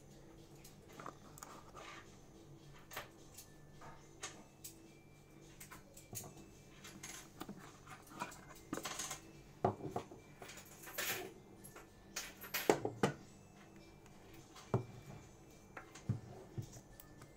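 Hands handling a cardboard phone box and its accessories, lifting a plastic wall charger and coiled cable out of the insert tray and setting them down on a table. Scattered taps, scrapes and rustles, busiest around the middle.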